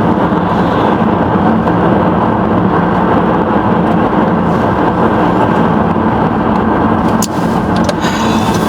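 Steady road and engine noise inside a moving car's cabin, with a low steady hum and a couple of short clicks near the end.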